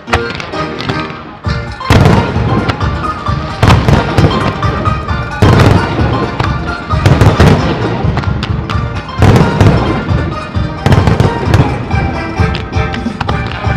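Firework shells bursting in loud, sudden bangs about every one and a half to two seconds, with music playing underneath.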